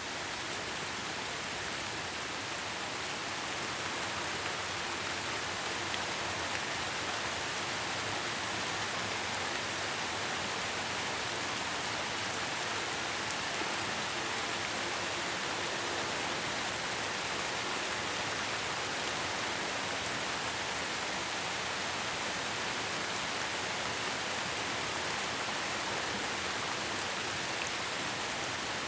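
Steady rain falling, an even hiss of many drops with no thunder or separate impacts, coming up in level over the first couple of seconds.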